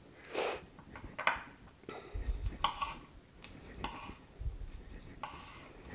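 Light kitchen handling: scattered clinks and knocks of dishes and utensils being moved about, with a couple of dull thuds.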